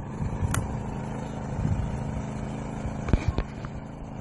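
A vehicle engine idling with a steady low rumble, broken by a few short sharp clicks about half a second in and again just after three seconds.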